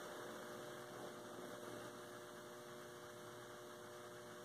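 Faint, steady electrical hum of quiet room tone, with nothing else happening.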